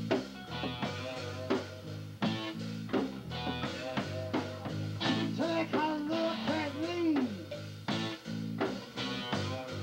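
A rock band playing: a drum kit keeping a steady beat, with bass and guitar, and a gliding melodic line that rises and falls in the middle.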